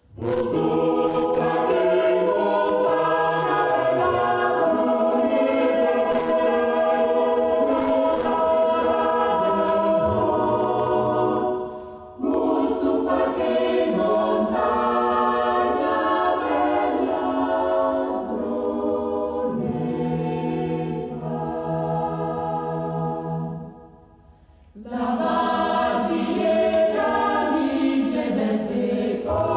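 A choir singing, its long held phrases broken twice by short pauses between them.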